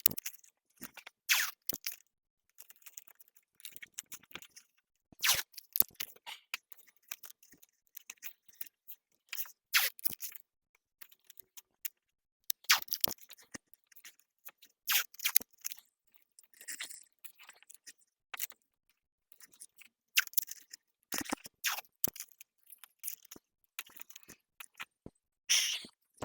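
Irregular small handling noises: short crinkles, clicks and scrapes one to a few seconds apart, with quiet between them.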